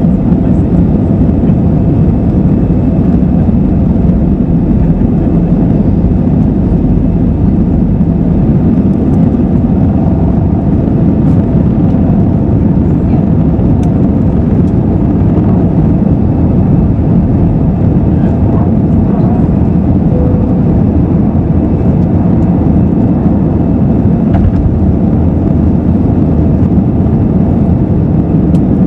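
Airbus A320's two CFM56-5B turbofan engines at takeoff thrust, heard inside the cabin over the wing: a loud, steady roar through liftoff and the initial climb.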